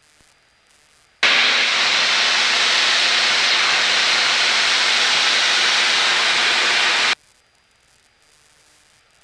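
Aircraft radio static: a loud, even hiss comes on abruptly about a second in and cuts off sharply about six seconds later, the sign of the receiver's squelch opening on a keyed but silent transmission or a burst of noise on the frequency.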